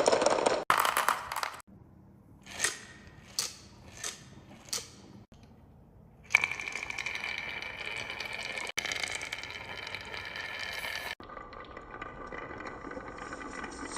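Marbles on a wooden marble run: four sharp clacks about two thirds of a second apart, then a steady rolling rattle along the wooden track, broken by abrupt cuts.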